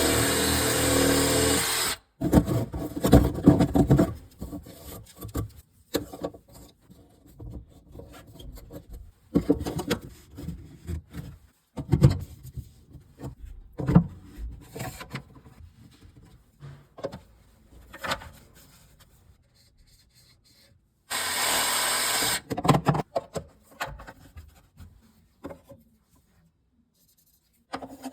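Plumbing work on a kitchen sink: scraping, rubbing and knocking of tools and fittings being handled. A loud steady tool noise runs for about the first two seconds and returns briefly about two-thirds of the way through.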